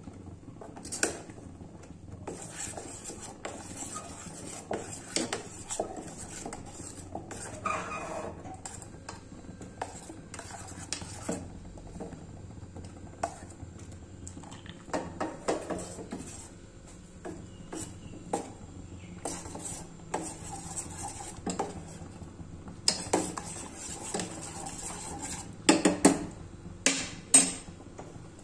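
Steel spoon stirring milk in a stainless steel saucepan, clinking and scraping against the pan's sides and bottom in irregular taps, with the loudest knocks near the end.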